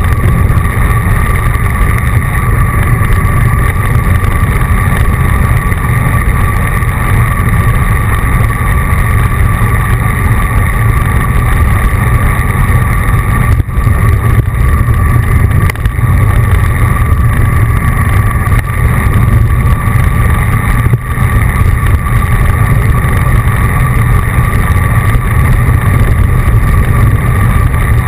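Wind rumble and road noise on the microphone of a bike-mounted action camera moving at riding speed, with a steady faint whine over it.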